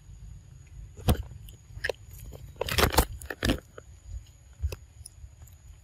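Macaque crunching bits of food in its mouth: a handful of sharp crunches, the loudest clustered about three seconds in.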